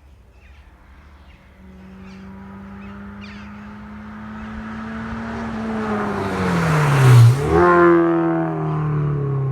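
Mazda MX-5 NC with a BBR Cobra exhaust driving up to and past, its four-cylinder exhaust note swelling steadily about two seconds in. It is loudest as it passes, around seven seconds in, with a brief dip in pitch, then the note falls away as it drives off.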